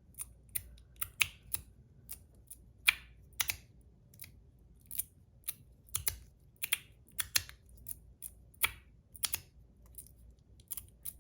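42 Cosmo Last Mermaid XXL Slider V3, a magnetic slider fidget, being slid and snapped in the hand. Its magnet-held plates click sharply together, roughly two clicks a second at an uneven pace.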